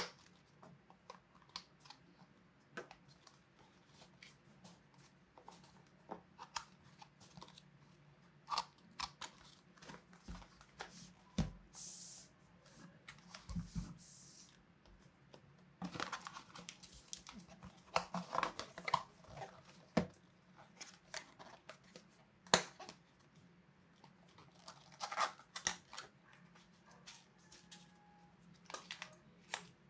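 Hands unpacking small boxed electronics: cardboard boxes and inner trays opening, sliding and tapping, with plastic packaging rustling in scattered short clicks and crinkles. A longer rasping rustle of packaging comes about twelve seconds in.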